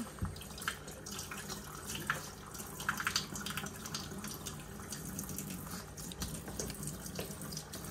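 Kitchen faucet running into a stainless steel sink while hands rinse a piece of skinned squirrel meat under the stream. Steady water noise with small, irregular splashes and clicks.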